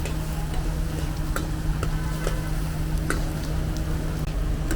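Street-food kitchen sounds: scattered short clinks and ticks of utensils over a steady low hum, with a frying sizzle beneath.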